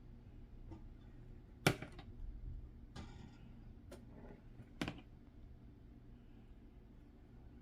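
A few sharp taps and clicks of kitchen utensils being handled while glaze is brushed onto a seitan ham. The loudest tap comes a little under two seconds in, and two more come around four and five seconds in, with soft handling noise between.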